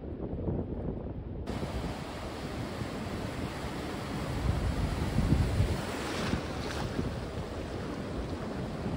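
Ocean surf breaking and washing in shallow water, with wind rumbling on the microphone; it swells louder about halfway through.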